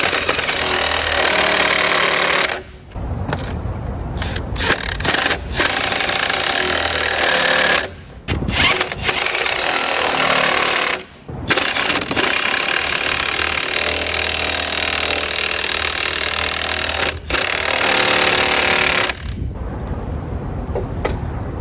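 Impact wrench hammering in several long runs of a few seconds each, with short pauses between, tightening the nuts on a new upper control arm. The runs stop near the end.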